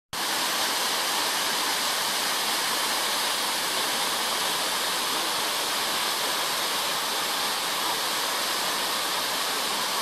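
Waterfall falling into its plunge pool: a steady, even rush of water, mostly hiss, with no change in level.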